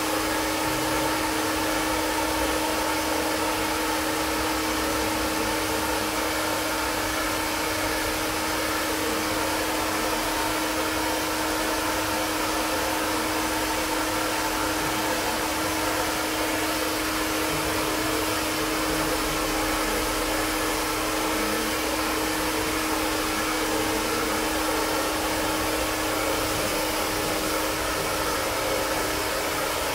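Handheld Prife iTeraCare terahertz health blower running steadily: a hair-dryer-like fan whirr with a steady hum.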